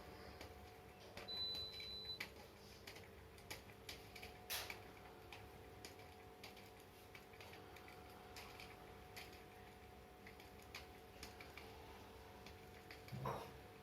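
Faint scattered ticks and clicks over a steady low hum, with one short high tone about a second in and a louder knock near the end.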